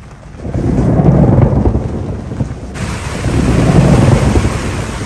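Thunderstorm: thunder rumbling in two long rolls, with a steady hiss of rain cutting in suddenly a little under three seconds in.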